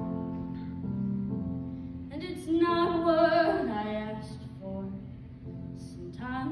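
A young woman singing a slow ballad solo into a handheld microphone over a recorded instrumental backing track of sustained chords. One sung phrase comes about two seconds in, and another begins near the end.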